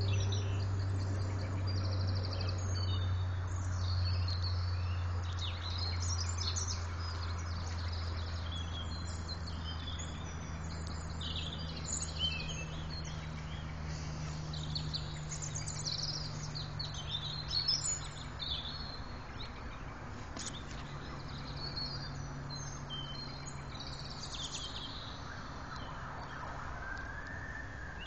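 Songbirds calling and chirping in an evening chorus over a low, steady hum. Near the end a siren wail rises and then falls.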